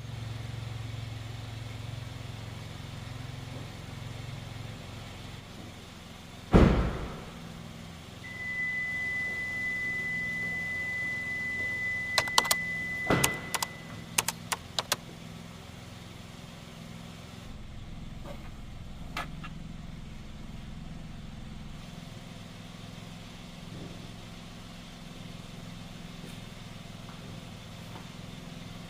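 A car running low and steady, then one heavy thump like a car door shutting about six and a half seconds in. A steady high beep follows for about six seconds, with a quick run of sharp clicks near its end.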